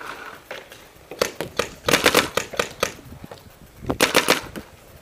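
Paintball marker firing in rapid strings of shots: a few sharp pops about a second in, a longer quick string around two seconds, and another short burst near four seconds.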